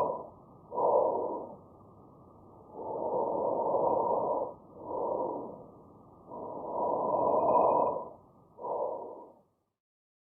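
Normal vesicular breath sounds through a stethoscope: about three breathing cycles, each a long breath in followed by a shorter breath out, stopping near the end.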